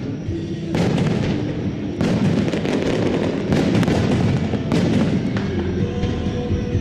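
A fireworks display: about four big shell bursts, each followed by a long spell of crackling, with music playing underneath.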